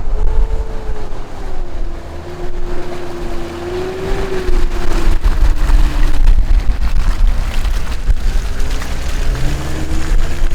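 An off-road 4x4's engine running on the move, its note rising and falling with the throttle, over a heavy low rumble with wind buffeting the microphone and scattered knocks.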